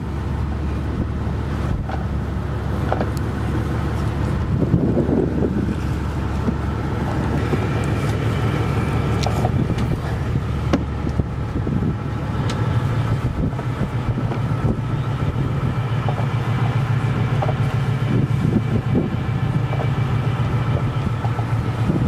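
Steady drone of a wooden Fifie herring drifter's engine as the boat runs under power, with wind buffeting the microphone and a few light knocks on deck.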